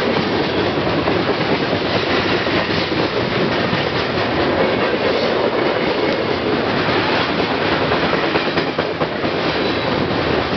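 Train of open-top coal hopper cars rolling past close by: a steady, loud rumble and clatter of steel wheels on the rails.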